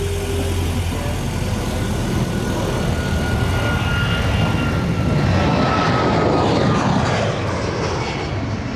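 An airplane's engine passing by overhead: a broad engine noise that swells to its loudest about five to seven seconds in and then eases, its pitch slowly falling as it goes.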